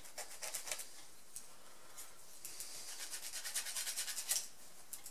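A marking tool rubbed back and forth on a steel plate to mark a cut line, making short scratchy strokes: a few near the start and a quicker run of strokes in the second half. The mark is not taking well on the metal.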